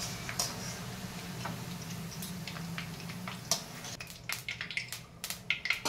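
Okra pieces sizzling and crackling in hot oil in a steel kadai while a wire spider strainer and slotted spoon scoop them out, with metal clinks against the steel pan and bowl. A low steady hum runs underneath and stops about four seconds in, after which the clinks and crackles come sharper and more often.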